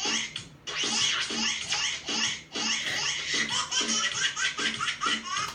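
Recorded laughter played back as a ringtone: laughing in quick, even bursts, two or three a second.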